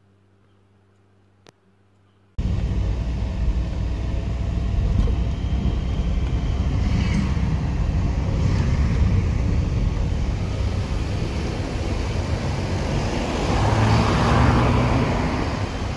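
Near silence for about two seconds, then suddenly loud street traffic: a van and cars driving past close by, with a louder car pass near the end.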